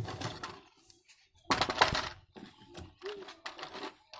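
Hard plastic toy truck clattering and knocking against a cardboard box and concrete as it is handled, with the loudest burst of knocks about a second and a half in.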